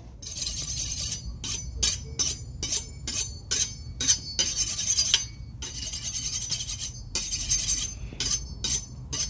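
Large forged kitchen knife being honed on a honing steel: a run of metallic scraping strokes. Some strokes are long and drawn out, others short and quick at about three a second.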